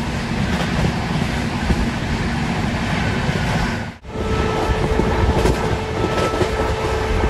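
Passenger train running at speed, heard on board: a steady rumble of wheels on the rails and coach rattle. The sound drops out abruptly for a moment about four seconds in, then carries on with a faint steady tone added.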